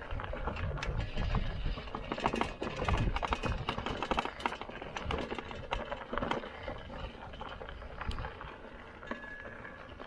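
Lectric XP folding e-bike rattling and clattering as it is ridden over rough dirt, with irregular knocks over a low rumble, busiest in the first half.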